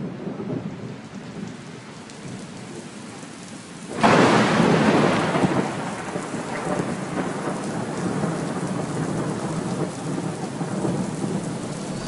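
Thunderstorm with heavy rain: low rolling thunder, then a sudden loud thunderclap about four seconds in that rumbles away over steady rain.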